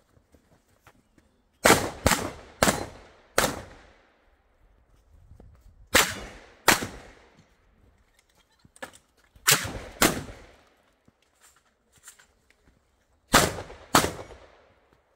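Shotgun fired ten times in a practical shooting stage: a quick string of four shots, then three pairs of shots a few seconds apart, each shot trailing off in an echo.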